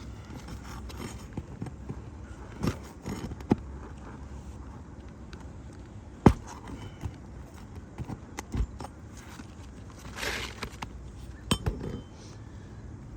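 Metal tool tapping, clinking and scraping against asphalt shingles and their nails as the nails are worked out to free a damaged shingle. Scattered sharp knocks, the loudest about six seconds in, over a steady low rumble.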